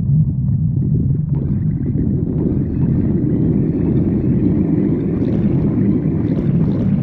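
A person's stomach growling in one long, continuous low rumble, with a higher gurgling texture joining in a little over a second in.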